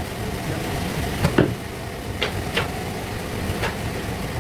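Band sawmill running with a steady low hum, broken by a few sharp knocks, the loudest about a second and a half in.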